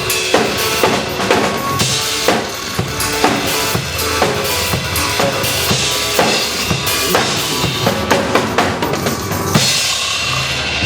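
Drum kit played in a steady beat of kick, snare and cymbals over a pop backing track. The drumming drops out about a second before the end, leaving the backing music.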